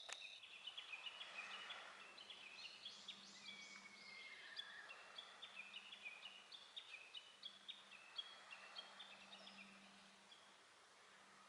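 Faint birdsong: many short, high chirping notes from several birds, overlapping and dying away near the end, over a faint steady low hum.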